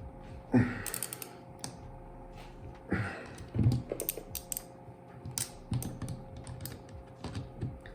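Ratchet wrench clicking in short irregular runs as the screw of a welding cable connector is tightened down on the cable, with a few knocks of metal parts being handled.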